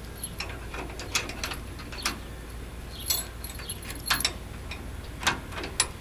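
Padlock being fitted through a trailer coupler's latch: a scattered series of small metal clicks and clinks as the shackle and lock body are handled and pushed into place.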